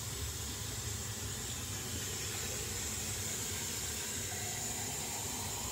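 Kitchen faucet running steadily: a constant hiss of flowing water, probably drawing the water to pour into the bottom of the baking pan.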